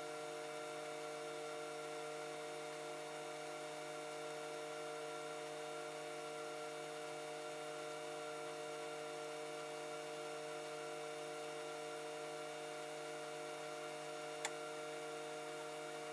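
Steady electrical hum made of several constant tones, with one faint click about fourteen and a half seconds in.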